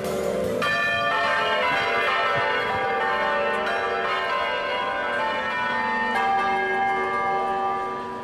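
Church bells pealing, many overlapping strokes ringing on together and fading near the end.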